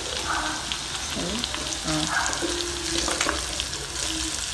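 Cumin, crushed garlic and dried red chillies sizzling steadily in hot oil in a karahi, with scattered clicks of a spoon stirring against the pan; the garlic is browning to golden.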